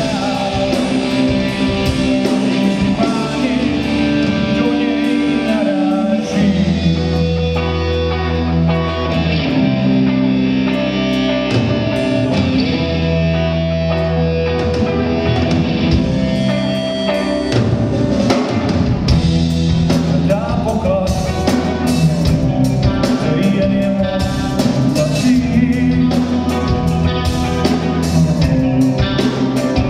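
Rock band playing live: electric guitars, bass guitar and drum kit, with the drum hits growing denser in the second half.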